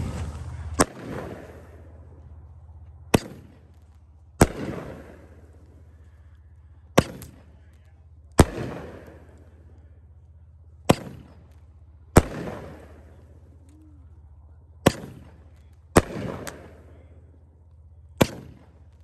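A 'Tannerite' consumer firework cake, Unsafe and Insane, firing shot after shot. Each shell goes up with a sharp launch crack, then bursts about a second and a half later in a loud bang that echoes away, five times in all. It is a report-heavy cake, made for noise more than for visual effect.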